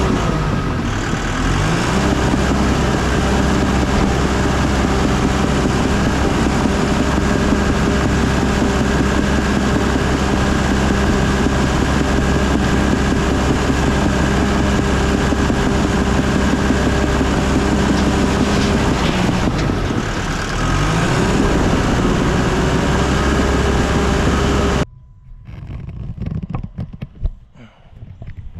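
Bulldozer's diesel engine running hard under load. Its note sags and then climbs back twice, about a second in and again about two-thirds through. The sound cuts off abruptly near the end, leaving only faint scattered knocks.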